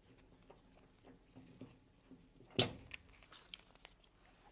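Faint, irregular clicks and scrapes of a socket wrench unscrewing a washing machine's transit bolt, with one louder knock about two and a half seconds in as the bolt and its plastic spacer come free.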